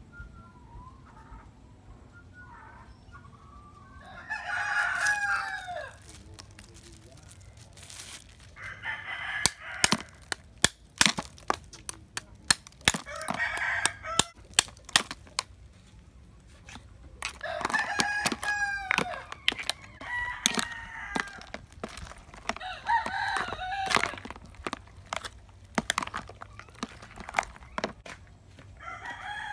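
A rooster crowing again and again, about six long calls. Between the calls come sharp clicks and clatters of ice cubes dropping into a plastic tub and being stirred with a plastic spoon.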